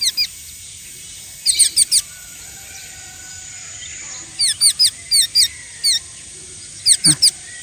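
A young hand-fed songbird chirping while being fed: short, high, downward-sliding chirps in quick groups of three to six, with pauses between the groups.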